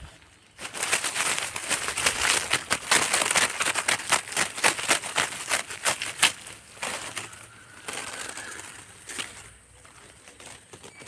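Dry vegetation rustling and crunching in a dense run of crackles for about six seconds, then thinning out and quieter.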